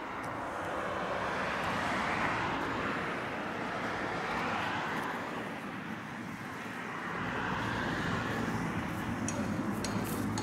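Road traffic going by: a steady rush of tyre and engine noise that swells about two seconds in and again near the end, with a few light clicks near the end.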